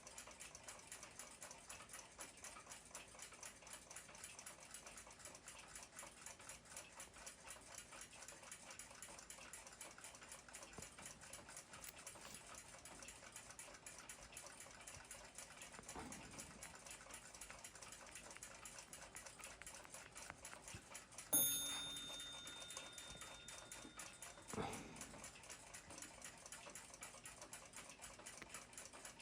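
Faint, steady, rapid ticking of a clock escapement. About two-thirds of the way through, a single sharp metallic ring sounds and dies away over about a second.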